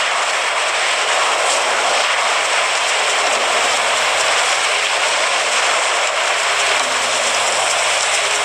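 Ocean surf breaking and washing over a sandy beach, a steady rushing noise.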